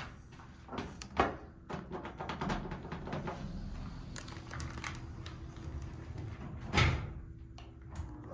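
Elevator car doors of an Otis HydroFit hydraulic elevator sliding shut, with a few clicks and knocks and then a loud thud about seven seconds in as they close, over a faint steady hum.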